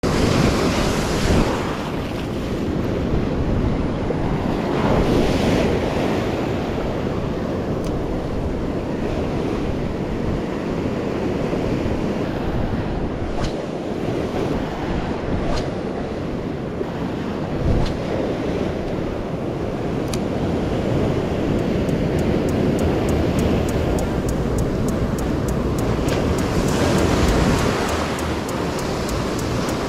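Ocean surf breaking and washing up and back over the beach close by, in continuous swells, with wind buffeting the microphone.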